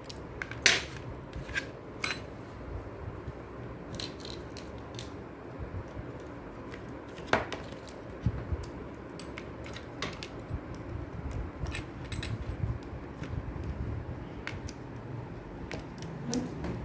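Small metal parts of a Mechanix construction kit clicking and clinking as a nut and bolt are fitted and tightened: scattered light ticks, with two sharper clicks, one about a second in and one just past the middle.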